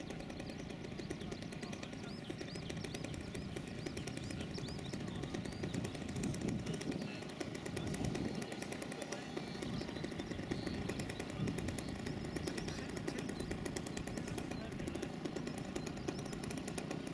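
Outdoor ambience: a steady low rumble with faint voices, and a few short high chirps in the first several seconds.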